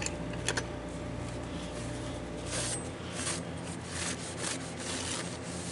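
Cloth rag rubbed along a sawmill's steel band blade, wiping it: a single click early, then a run of quick scrubbing strokes, about three a second, through the second half.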